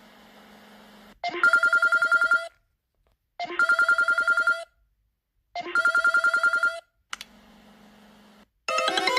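Phone ringtone with a rapid trilling ring, sounding three times, each ring about a second long with a pause of about a second between. Near the end a different, melodic ringtone starts.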